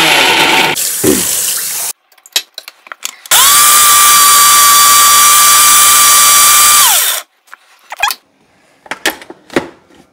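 Preethi mixer grinder running in two bursts while grinding a spice paste. The first run winds down with a falling whine about a second in; the second runs steadily for about three and a half seconds and winds down the same way. A few clicks from the steel jar and lid being handled follow near the end.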